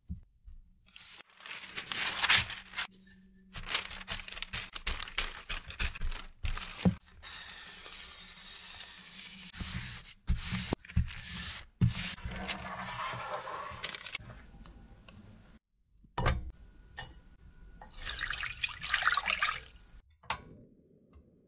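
Crumbly cookie dough scraped off a silicone spatula onto parchment paper, then a wooden rolling pin rolled over the dough under a parchment sheet: paper rustling and crinkling, with a few light knocks.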